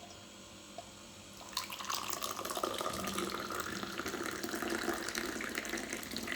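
Water running from a tap, starting about a second and a half in and continuing steadily.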